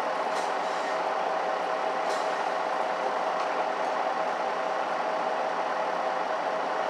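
Cabin sound inside a Mercedes-Benz O530 Citaro city bus: a steady engine hum with cabin noise, holding at an even level with a couple of faint ticks.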